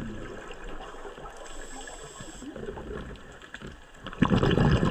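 Underwater ambience of a scuba dive: a low water hiss with faint clicks, then about four seconds in a loud low rush of bubbles, typical of the diver breathing out through a scuba regulator.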